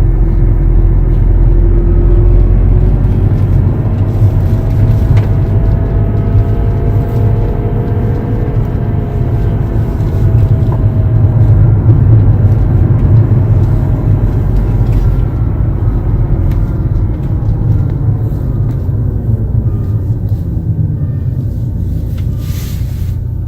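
2011 BMW F10 being driven, with a steady low rumble and a whine whose pitch slowly rises and falls with speed. The owner takes the whine for a differential problem.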